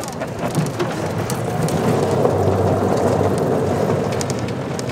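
Vehicle driving on a rough dirt road: a steady rumble of tyres and engine with scattered small rattles.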